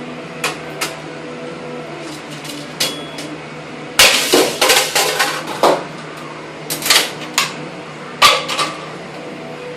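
Plastic computer printer being smashed apart: a few light knocks, then three bursts of hard blows with cracking and clattering about four, seven and eight seconds in.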